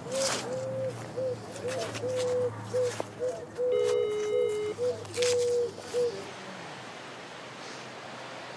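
A pigeon cooing in a run of short notes, some drawn out, for about six seconds, then stopping. About four seconds in, a phone's ringing tone sounds once: a steady beep about a second long, the call still unanswered.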